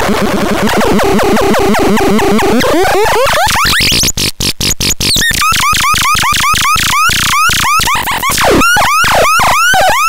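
TRAKANDAX hand-built electronic sound box putting out a rapid, pulsing stream of electronic chirps. Their pitch climbs over the first few seconds, the sound briefly stutters in and out about four seconds in, then high swooping chirps follow, with one long downward sweep near the end.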